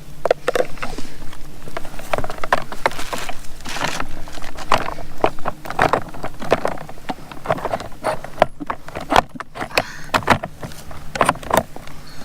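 Irregular clicks, taps and knocks of plastic and small metal parts being handled and fitted while a toy ride-on motorcycle's wheel is assembled.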